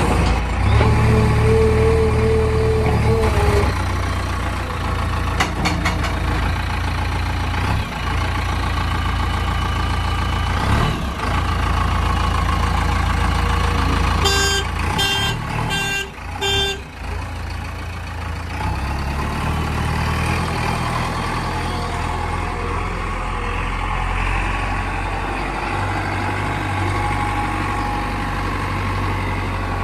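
Heavy diesel engine of a JCB backhoe loader running under load while it digs and loads mud, a steady low drone that dips and surges. A held tone sounds for about three seconds near the start, and four short beeps come about halfway through.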